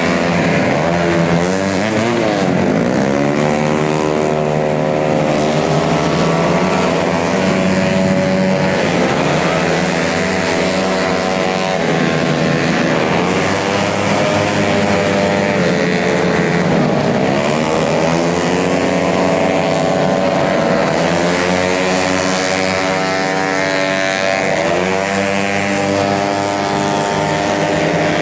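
Tuned 150cc automatic scooter racing engines running hard, their pitch rising and falling again every few seconds as the throttle is opened and closed.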